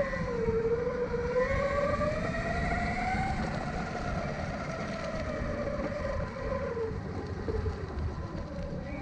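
Dual brushless motors of an off-road electric skateboard whining under way, the pitch climbing over the first few seconds and then falling away, over a steady low rumble.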